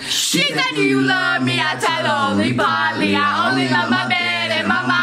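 Girls singing loudly into a handheld microphone over a pop song playing on a speaker, with held notes over a steady bass line.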